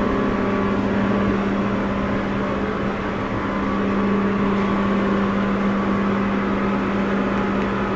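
Steady machine hum with a constant low tone.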